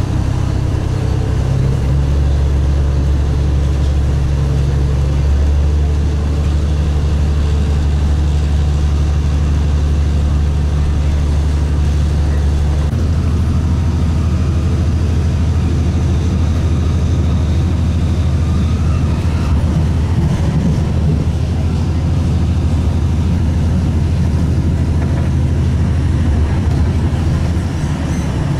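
Interior running noise of a Stadler Citylink tram-train at about 80 km/h: a steady low drone from the drive over wheel and track rumble. The drone's tone shifts about two seconds in and again about thirteen seconds in.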